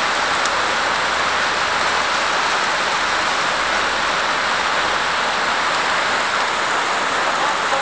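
Heavy rain pouring down onto the street and trees, a loud, steady hiss.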